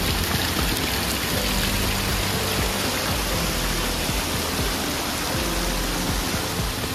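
Steady rush of running water, with background music of held low notes underneath.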